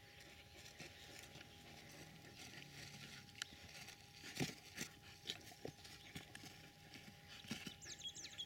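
Faint, irregular knocks and clicks, the loudest a little before the middle, with a short run of high chirps near the end.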